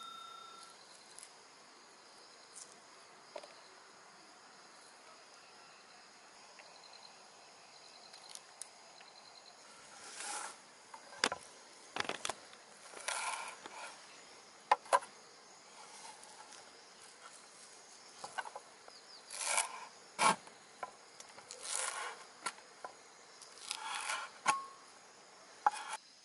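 Knife cutting green onion stalks on a wooden chopping board: scattered sharp knocks of the blade on the board and short crisp cutting sounds, starting about ten seconds in. Underneath is a faint, steady chirr of insects.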